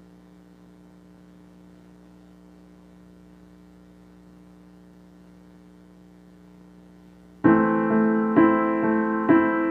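A faint steady low hum, then piano chords come in loudly about seven seconds in, struck about once a second as the intro of a ballad.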